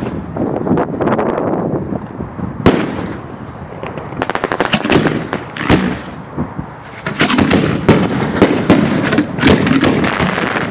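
Aerial fireworks finale: shells bursting one after another with rapid crackling, a single sharp bang about three seconds in, and the densest rattle of reports in the last few seconds.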